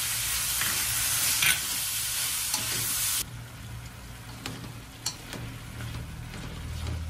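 Green beans and carrot strips sizzling in hot oil in a stainless steel wok as they are stir-fried. About three seconds in, the sizzle drops sharply to a quieter frying hiss, with a few sharp clicks of chopsticks against the wok.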